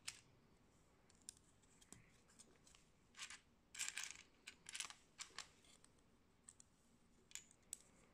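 Faint clicking and clattering of small Lego-compatible Sembo plastic bricks as hands press pieces onto a plate and sort through loose pieces. Single light clicks are scattered throughout, with a denser rattle of several clicks a few seconds in.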